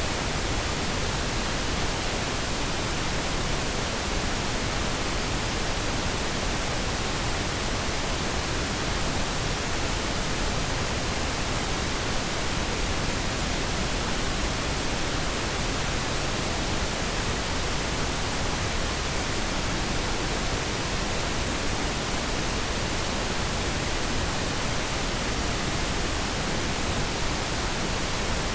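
Pink noise test signal: a steady, even hiss across the whole frequency range, unchanging throughout, used for audio calibration.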